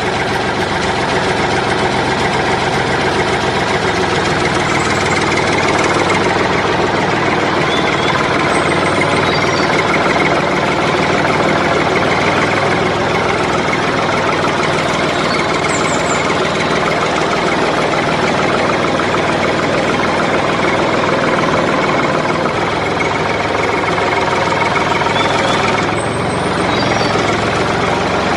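Tractor engine running steadily at idle throughout.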